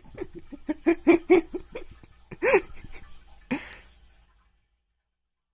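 A person laughing in quick rhythmic bursts, then two louder separate cries of laughter. The sound cuts off about four and a half seconds in.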